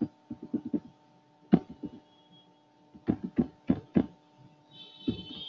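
Computer keyboard being typed on, irregular clusters of key clicks, over a faint steady electrical hum.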